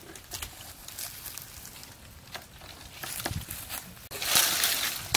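Twigs and dry branches cracking and snapping as they are hooked and pulled down from trees with long poles, with a loud rustle of leafy branches about four seconds in.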